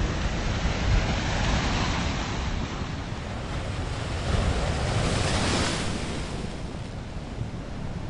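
Ocean surf breaking on lava rocks: a steady rush of churning water, with a bigger wave surging about four and a half seconds in, then easing off toward the end.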